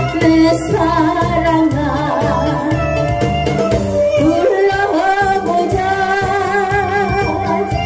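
A woman singing a Korean trot song into a microphone over a backing track with a steady beat, her held notes wavering with strong vibrato.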